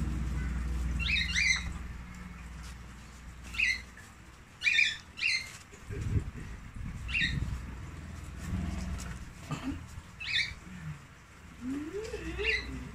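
Short high chirps, one or two at a time, about eight spread through, over a low rumble that dies away after about three seconds.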